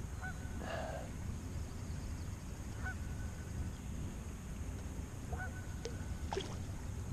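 Geese honking faintly, a few short calls spread out over several seconds, over a steady low rumble.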